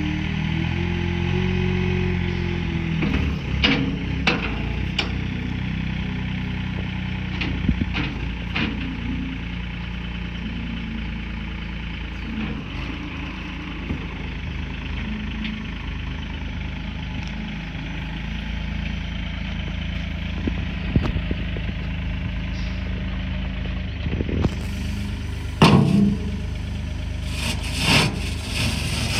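Komatsu WA30-6 compact wheel loader's diesel engine idling steadily, its pitch rising and falling briefly about a second in. A few sharp clicks and knocks sound over it, the loudest near the end.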